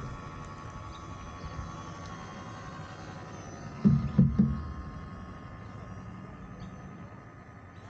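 Radio-controlled model boat running on the water, its small electric drive giving a steady whine over a low rumble. Three quick thumps come close together about halfway through.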